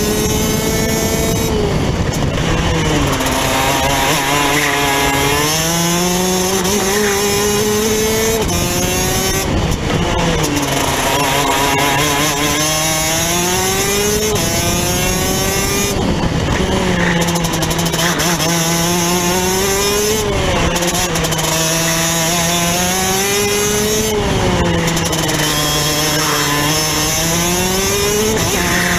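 Rotax DD2 kart's 125cc two-stroke engine heard onboard at racing speed. Its pitch climbs steadily under throttle, then falls sharply as the driver lifts, about four times.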